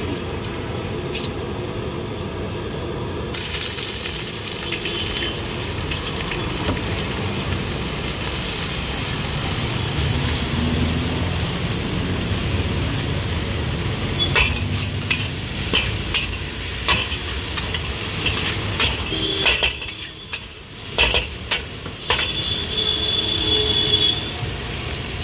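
Hot oil sizzling in a large street-food wok. About three seconds in, the sizzle jumps louder as shredded cabbage hits the oil. From about fourteen seconds on, a metal ladle and spatula clang and scrape against the wok while the vegetables are stir-fried.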